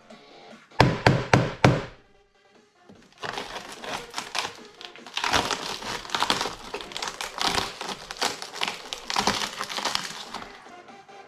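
Four hard knocks in quick succession about a second in, then a long run of cracking, snapping and crunching as an LCD monitor's parts are broken apart.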